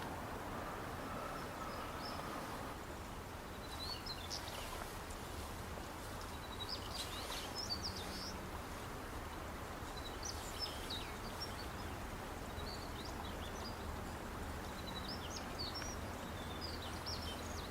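Small birds chirping and twittering in short, scattered bursts over a steady low background rumble.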